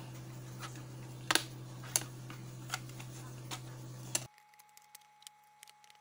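About five sharp plastic clicks and taps, roughly one every 0.7 s, as the black plastic housing of a solar street lamp is handled and fitted together, over a steady low hum that stops abruptly about four seconds in.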